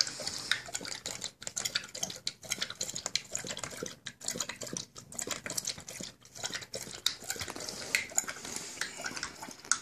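Rottweiler eating from a stainless steel bowl while lying down: a rapid, irregular run of wet licking and chewing sounds, with tongue and food clicking against the metal bowl.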